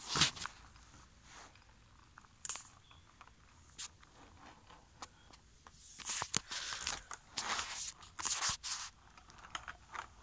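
Handling noise: scattered light clicks and rustling, with a denser run of scraping rustles between about six and nine seconds in.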